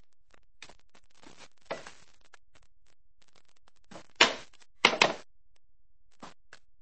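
A few short thumps or knocks in a quiet room, the loudest two about four and five seconds in.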